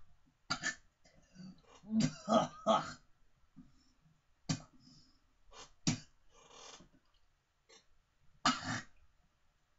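A man coughing and clearing his throat in a string of short, harsh bursts, loudest in a cluster about two seconds in: his reaction to a foul-tasting Bean Boozled jelly bean.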